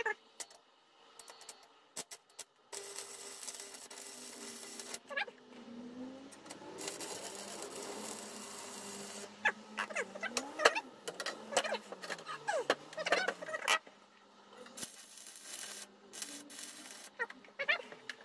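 Electric arc welder crackling and sizzling in three bursts of a few seconds each, tack-welding a steel stool frame, with sharp metallic clicks and clinks of tools and clamps between the welds.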